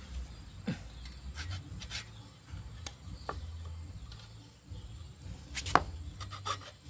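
Hacksaw being set on a pipe and handled, giving scattered scrapes and clicks of the blade on the pipe, with the loudest scrape near the end as the cut begins.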